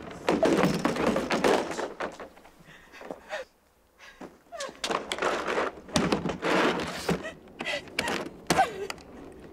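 Hard-shell wheeled suitcase clattering and thudding on pavement amid hurried footsteps, in a run of sharp knocks and scrapes, with a woman's short gasping sobs in between.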